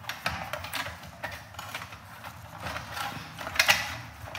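Irregular clicks and knocks of hands handling plastic and metal parts inside an open Dell desktop case as its power supply is being taken out, the loudest knocks near the end.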